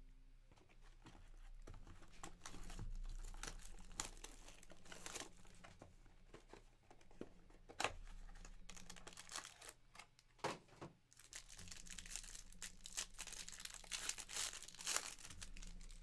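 Quiet crinkling and tearing of a 2023 Panini Absolute Football card pack's wrapper as it is opened, with irregular crackles throughout.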